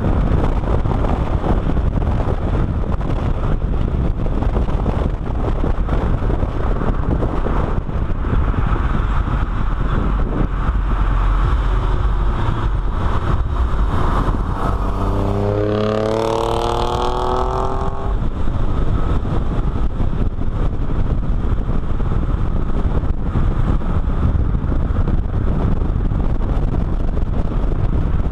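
Heavy wind buffeting on the microphone and road noise from a car at speed. About halfway through, the engine note rises for two or three seconds as the car accelerates.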